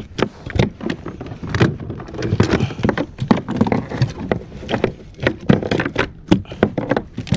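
Freshly caught javelin grunter flapping and slapping against the plastic hull of a kayak: a run of irregular sharp thumps and knocks, mixed with the clatter of handling the fish with a grip.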